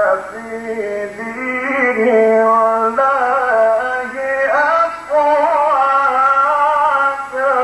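A man's voice reciting the Quran in the melodic, drawn-out mujawwad style, holding long ornamented notes in phrases with short breaks between them.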